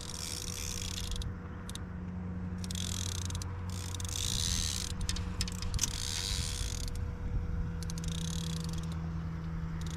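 Small fishing boat's motor running steadily at trolling speed, a low even hum, with bursts of hiss laid over it.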